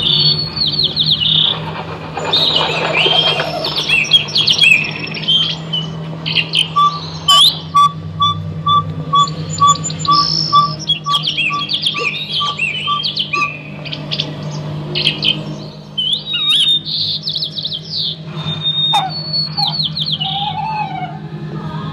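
Electronic sound-collage soundtrack played through portable amplifiers: rapid, high, bird-like chirps and trills over a steady low hum. A run of short, evenly spaced beeps, about two a second, comes in about seven seconds in and stops after some six seconds.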